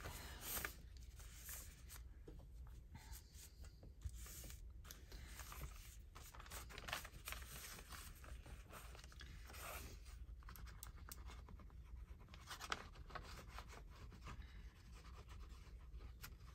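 Faint, irregular rubbing and rustling of paper being handled and pressed down on a journal page, with scratchy strokes now and then.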